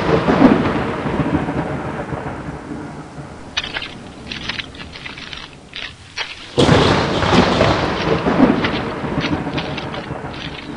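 Thunderstorm: a thunderclap rumbling and slowly fading, with scattered crackling rain patter in the lull. A second sudden thunderclap breaks about six and a half seconds in and rolls away over several seconds.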